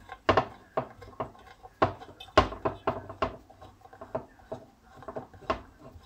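Irregular metallic clicks and knocks as a hex key turns bolts into a chainsaw's metal crankcase halves and clinks against the case. There are about a dozen sharp ticks, the loudest about two and a half seconds in.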